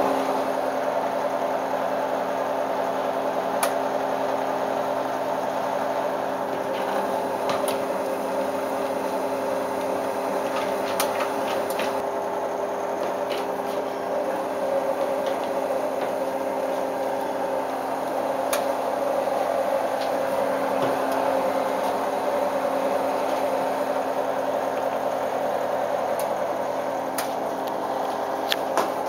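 Balay T-8295 front-loading washing machine running during its delicate rinse: a steady motor hum with a few faint ticks.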